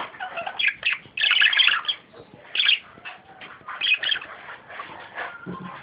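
Budgerigar chattering and warbling in quick, uneven bursts of scratchy squawks and chirps, loudest about a second in.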